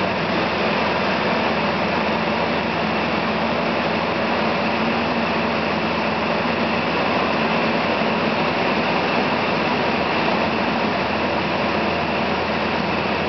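Cockpit noise of a small aerobatic plane in flight: the engine and propeller running steadily under a dense rush of air, heard from inside the cabin.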